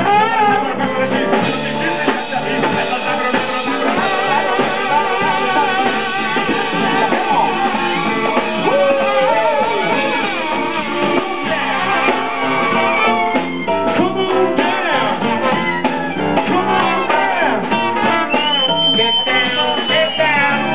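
Live band playing with guitar and singing; a trumpet plays near the end, holding one long high note.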